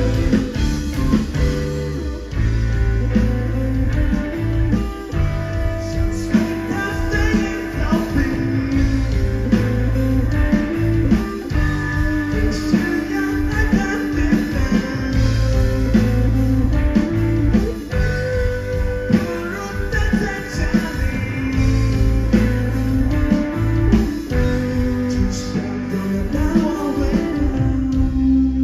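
Live indie/emo rock band playing: two electric guitars over a drum kit, continuous and loud.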